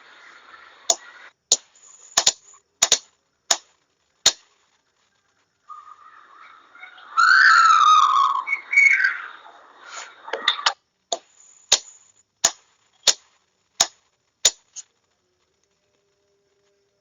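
Sharp single clicks, roughly one every half-second to second, from a hand-worked signalling key or switch sending Morse code groups. About seven seconds in, a louder warbling sound with a wavering, falling pitch lasts about two seconds.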